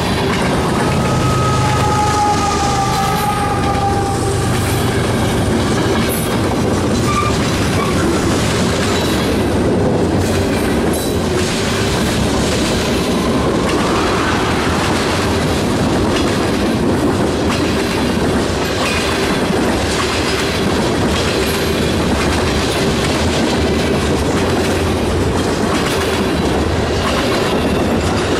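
Loaded freight cars rolling past close by: a steady rumble of steel wheels on rail with repeated clicks as the wheels cross rail joints. Faint high wheel squeal sounds from about a second to four seconds in, and a short rising squeal about fourteen seconds in.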